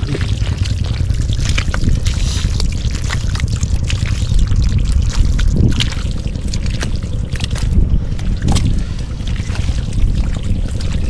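Shallow water splashing and trickling, with many small splashes over a steady low rumble.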